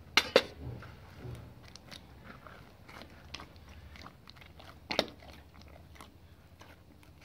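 Hands kneading a large mass of bread dough in a plastic bowl: sticky squelching and crackling as the dough is pulled and folded, with two louder smacks near the start and about five seconds in.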